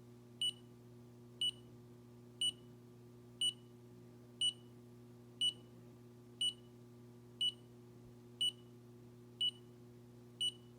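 Handheld combustible gas leak detector beeping steadily at about one short high beep a second as it is held near a furnace gas valve, with a steady low electrical hum beneath.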